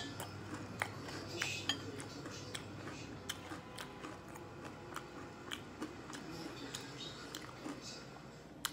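Stainless-steel chopsticks clicking and tapping against a ceramic plate and each other while picking up food, a string of light, irregular clinks.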